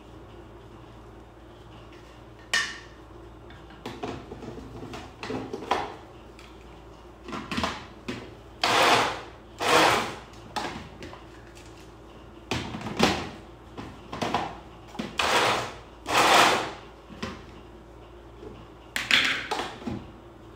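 Blender pulsed on and off in short bursts, about a dozen whirring spurts of half a second to a second each, as it shreds cooked pork into floss. There are a few knocks in between.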